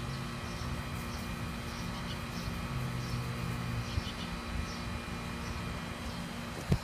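Steady outdoor background rumble with a low hum, faint scattered high chirps, and one short knock near the end.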